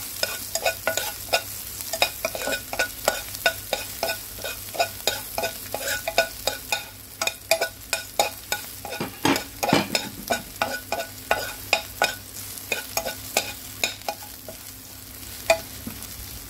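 Spatula stirring and tapping chopped garlic around a nonstick frying pan, a few clicks and scrapes a second over the faint sizzle of the garlic frying. There is a longer, louder scrape about nine seconds in.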